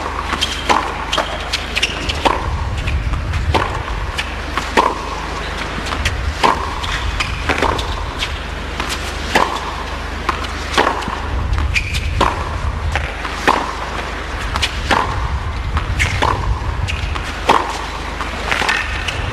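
Tennis ball struck back and forth in a long baseline rally on a hard court: a sharp racket hit about every second and a half, with fainter ball bounces in between.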